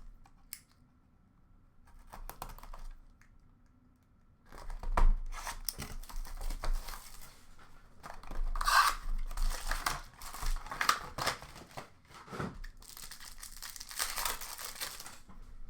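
Hockey card packs being torn open by hand, foil wrappers ripping and crinkling in quick irregular bursts. It starts after about four seconds of near quiet.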